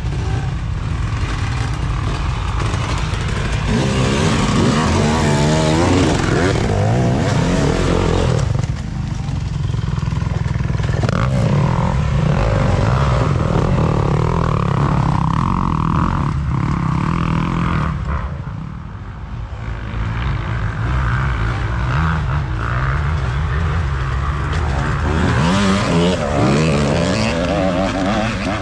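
Dirt bike engines racing past, revving up and down, rising and falling in pitch several times, with a short lull about two-thirds of the way through.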